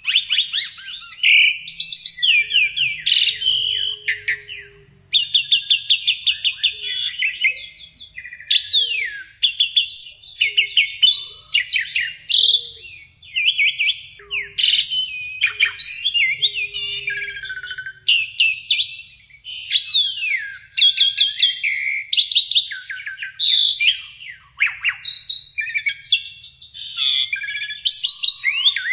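Javan pied starling (jalak suren) singing a long, rapid, chattering song of fast repeated trills, whistles and sweeping glides, broken by short pauses. This is the crackling 'konslet' style that Indonesian bird keepers prize.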